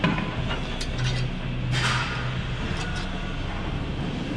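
Selector pin being set in the steel weight stack of a gym machine: a few light metal clicks, with a rustle about two seconds in, over a steady low hum.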